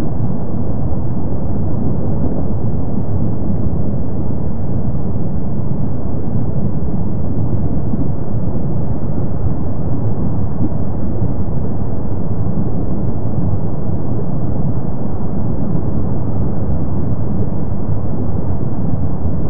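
Steady low rumble of Kilauea's erupting lava lake and its lava fountains, even and unbroken.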